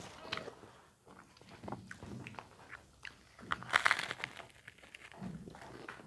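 Close-up eating sounds: crunchy bites and chewing, a series of short crackles with a louder crunch a little past the middle.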